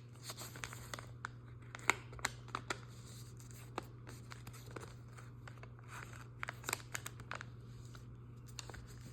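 A sheet of paper being folded and creased by hand: scattered soft crinkles, rubs and small sharp clicks of paper against paper.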